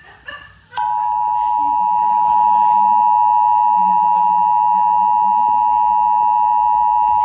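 Emergency Alert System two-tone attention signal: a loud, steady dual tone that starts just under a second in, after a couple of short beeps, and holds without change.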